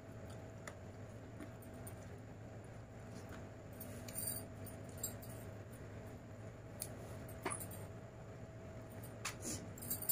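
Scattered small clicks and clinks of eating by hand off a stainless steel plate, with bangles knocking and a steel tumbler lifted to drink near the end, over a steady low hum.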